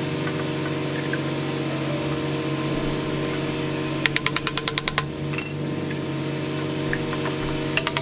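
Hammer tapping rapidly on a PVC pipe to drive it into its fitting: a quick run of about nine light taps within a second about four seconds in, then a few more near the end. Steady background music plays throughout.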